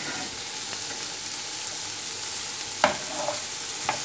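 Chopped onion and green chilli sizzling in hot oil in a frying pan while a steel spoon stirs them. The spoon knocks sharply against the pan a little before the end, and once more, softer, just before the end.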